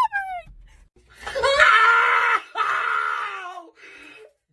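A man screaming in pain as his nose hair is pulled out: two long, loud screams one right after the other, starting about a second in. They are preceded by the end of a brief high-pitched cry.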